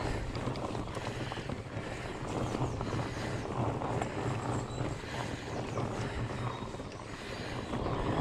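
Wind buffeting the microphone of a bike-mounted camera, over the rolling crackle and rattle of a mountain bike riding a dirt singletrack.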